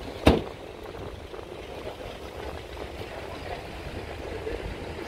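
Outdoor city street ambience with a steady rumble of traffic. One sharp, loud knock sounds about a quarter second in, with a short ring after it.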